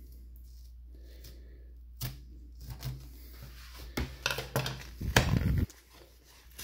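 Taped kraft-paper mailer being handled and opened: scattered sharp clicks and paper rustling, with a louder burst of paper crinkling and tearing about five seconds in that stops suddenly.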